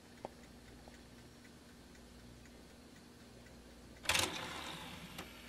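DVD player's tray-loading mechanism: a few faint ticks, then about four seconds in a sudden clatter and whirr as the loading motor starts driving the disc tray open, fading over about a second. The tray is driven by a loading belt that the owner says is slipping.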